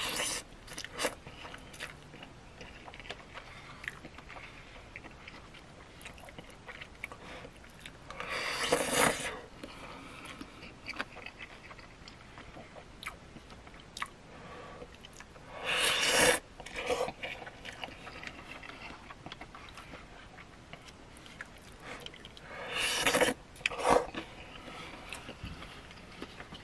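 A person eating cup ramen noodles with a fork: three loud slurps of about a second each, some seven seconds apart, with quiet chewing and small clicks in between.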